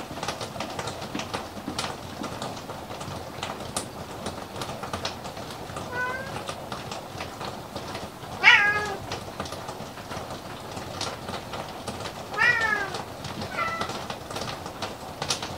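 Domestic cat meowing four times, the loudest about halfway through with a falling pitch, over a run of small, irregular clicks.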